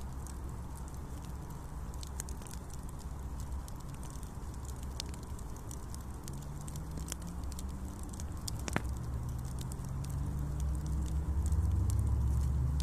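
Campfire crackling, with scattered sharp pops and snaps. A low hum comes in about halfway through and grows louder toward the end.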